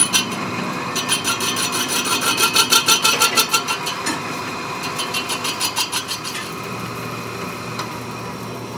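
Metal lathe turning a steel tractor wheel rim, the cutting tool working against the spinning rim. A steady machine whine carries a rhythmic rasping pulse about five times a second, which eases after about six seconds into a steadier, quieter running hum.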